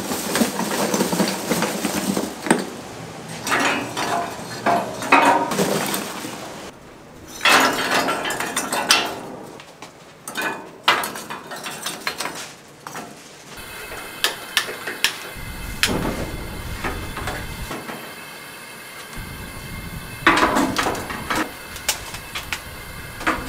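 Irregular clinking and clattering of hard objects during grill work, in bunches over the first dozen seconds. After a cut about halfway through comes a steady background hum with scattered sharp clicks.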